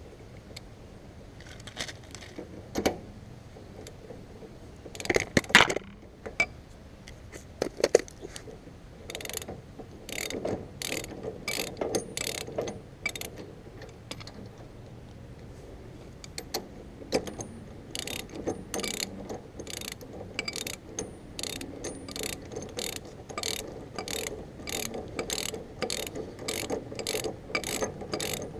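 Ratchet wrench clicking as it runs a 15/16-inch nylon locking nut up the perch pin of a Model A lower shock mount, pushing the key into place. A few separate metal clunks come first, then steady short ratchet strokes, about two clicks a second in the second half.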